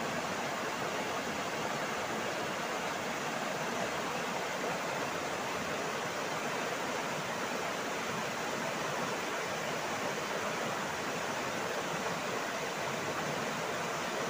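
Shallow river water rushing steadily over rocks and small rapids.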